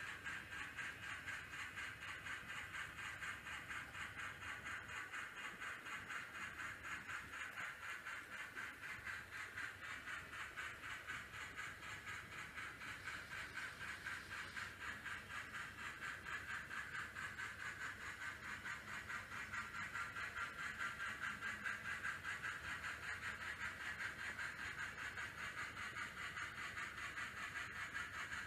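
Onboard sound decoder of an N scale Union Pacific Challenger steam locomotive model, playing a steady, quick, even steam chuff with hiss through its small speaker as the model runs.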